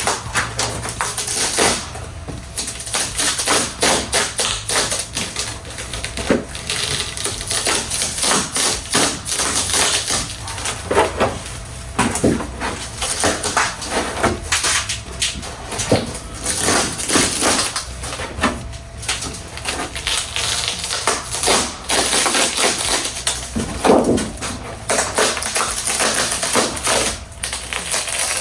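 Old fiberglass laminate cracking and crackling as it is pried and peeled off a surfboard's foam blank, in a long run of irregular sharp clicks and snaps.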